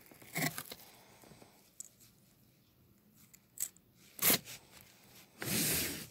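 Plastic clicks and rattles from a Hasbro Tornado Wyvern Beyblade top being handled and taken apart, its layer twisted off the disc and driver; the sharpest click comes about four seconds in. A louder scraping rustle of handling follows near the end.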